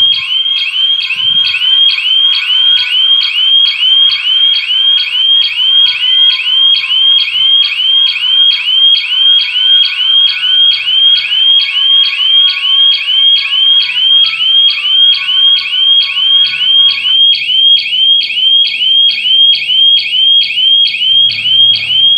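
Electronic alarm siren of a GSM burglar alarm system sounding without a break, a loud high-pitched rising wail repeating several times a second: the system has detected a security breach.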